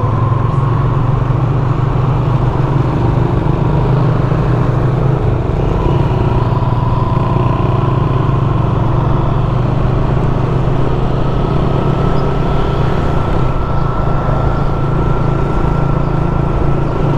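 Motorcycle engine running steadily at an even cruising speed, with road noise.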